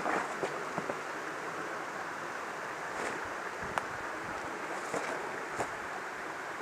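Steady rush of a stream running over rocks, with a few faint clicks and rustles close by.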